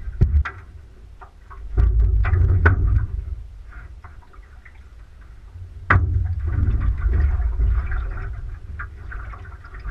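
Wind buffeting the camera's microphone in gusts, with scattered sharp knocks and clatter from a landing net and gear being handled in an aluminum boat; the loudest knock comes about six seconds in.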